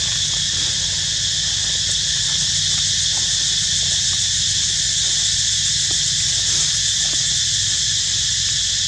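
Steady, unbroken high-pitched drone of an insect chorus, with a low steady rumble underneath.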